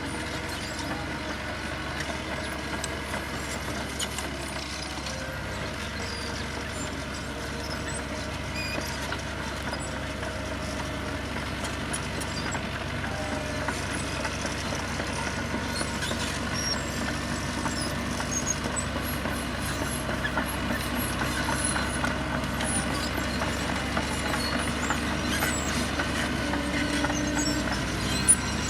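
Heavy diesel road-construction machinery running steadily, growing slowly louder, with a sharp knock near the end.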